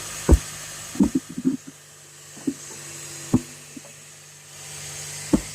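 2005 Scion xB's four-cylinder engine idling steadily, with a series of sharp knocks and clunks over it: one near the start, a quick cluster about a second in, and single knocks at intervals after.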